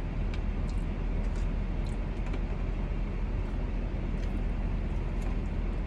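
Steady hum of a car's engine idling, heard inside the cabin, with a few faint small clicks.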